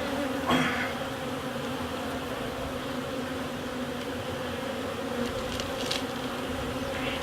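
A swarm of Italian honeybees buzzing steadily around an opened hive, a continuous hum, with a brief rustle about half a second in.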